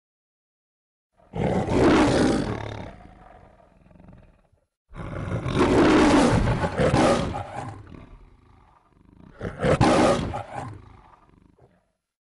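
A lion roaring three times, each a long rough roar that fades away, the last one shorter. This is the kind of studio-logo lion roar that goes with the MGM-style intro.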